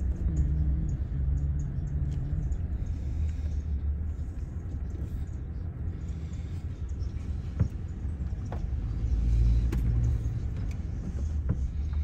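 A car driving on a gravel road, heard from inside the cabin: a steady low rumble of engine and tyres, with a few small clicks and knocks.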